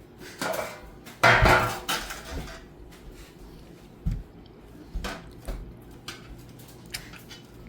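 Dishes and kitchen utensils clattering: a loud rattling scrape about a second in, then a few scattered knocks.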